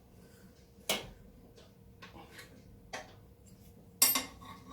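A few sharp metallic clicks, the loudest with a short ring near the end, from a spanner working the square adjuster on a classic Mini's rear drum brake. The adjuster is being turned anti-clockwise to back off the shoes, but the drum is not coming free.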